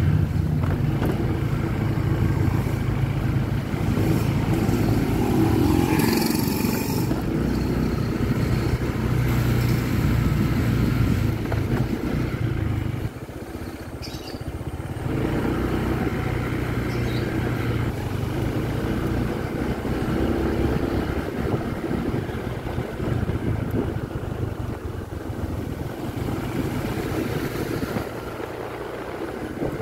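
Small motorcycle engine running steadily while being ridden. It eases off briefly about halfway through, then pulls again.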